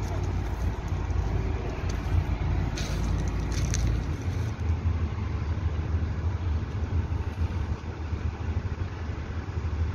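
Heavy diesel engine running steadily with a low rumble. Wind buffets the microphone for the first four seconds, and a few light clicks come about three seconds in.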